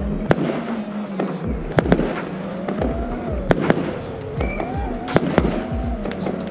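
Fireworks battery going off: a dozen or so sharp bangs and cracks at irregular intervals, over a steady hum that rises and falls in pitch.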